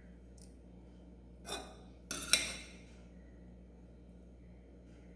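A ladle knocking and clinking against a dish a few times as cooked rice is added to soaked rice for appam batter. The clinks come about one and a half and two seconds in, the second the loudest, over a low steady hum.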